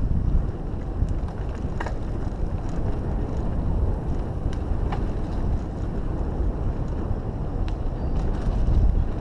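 Mountain bike rolling along a dirt singletrack: a steady low rumble of wind on the microphone and tyres on the trail, with a few sharp clicks from the bike rattling over bumps.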